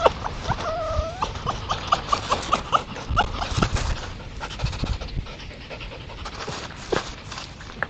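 Red fox calls: a wavering, whining cry at the start, then a quick run of short yipping calls about four a second, thinning out to scattered single calls.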